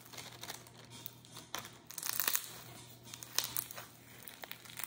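Plastic zip-lock bag crinkling as bingsu beads are tipped out of it, then crunchy slime full of beads being kneaded by hand. Irregular crackling bursts come and go, loudest about two seconds in and again about three and a half seconds in.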